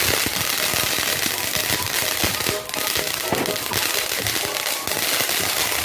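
Ground firework spraying sparks, crackling with many rapid sharp pops over a steady hiss, with a brief lull about two and a half seconds in.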